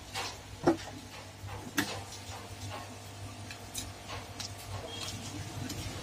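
Scattered small clicks and taps from a phone circuit board being handled in a spring-loaded metal PCB holder, with two sharper clicks about a second apart near the start.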